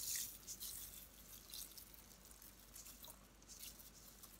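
Dry rice poured from a mesh strainer onto broth and chicken in a pressure cooker's inner pot: a faint, fine trickle of falling grains with light ticks, loudest in the first second and tapering off.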